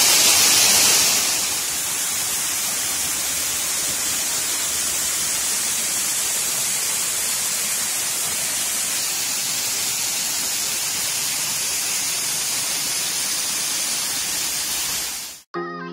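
Waterfall: a steady rush of falling water, a little quieter after about a second in, cutting off suddenly near the end.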